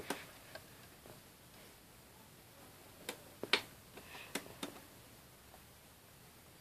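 Sharp plastic clicks as a CD is handled in the open top-loading disc compartment of a portable CD boombox: one at the start, then four more between about three and five seconds in, the one about three and a half seconds in the loudest.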